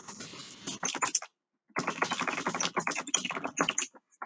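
Typing on a computer keyboard: rapid key clicks in two runs, with a short pause about a second and a half in.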